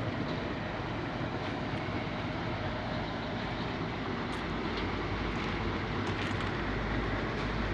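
Diesel bus engine idling steadily, a low hum with a faint steady whine above it, growing slightly louder near the end.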